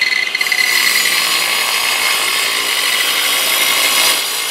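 Clarke Woodworker mitre saw cutting through the end of a yew plank: a loud, steady blade whine with the rasp of the teeth in the wood. The sound eases slightly about four seconds in as the cut nears its end.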